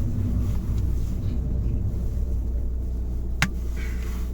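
A steady low hum runs throughout, with a single sharp click about three and a half seconds in.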